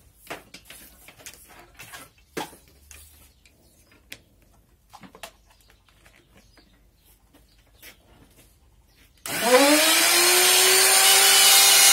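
Scattered light clicks and knocks of the tool being handled, then about nine seconds in a handheld electric plunge router switches on. Its motor whines up to full speed within about half a second and runs steadily at a high pitch.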